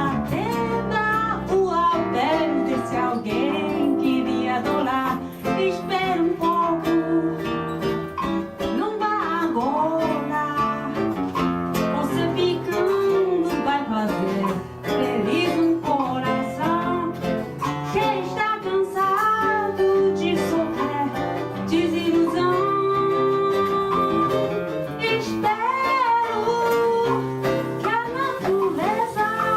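Small samba band playing live: plucked cavaquinho and seven-string guitar over samba percussion such as pandeiro and surdo.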